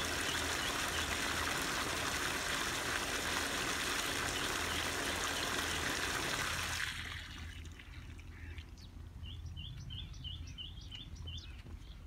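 Hose water jet spraying onto a tractor oil cooler's coils, a steady rushing splash that stops about seven seconds in. Then a bird calls a quick run of about seven short repeated notes.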